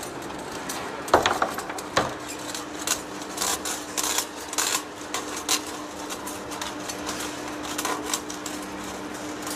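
Large lathe taking a roughing cut on a rusty steel workpiece: a steady machine hum under irregular sharp cracks and clicks as the curled blue chips break off the cutting tool and strike metal, the loudest about one and two seconds in.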